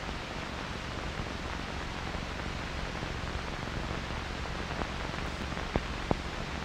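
Steady hiss with a low hum, the background noise of an old film soundtrack, with a few faint clicks near the end.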